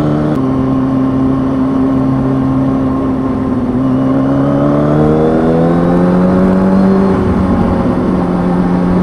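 Kawasaki ZX-6R 636 inline-four motorcycle engine under way with wind rush. It holds a steady note for a few seconds, then climbs in pitch as the bike accelerates from about four seconds in. Near seven seconds the pitch drops suddenly with an upshift and then settles steady.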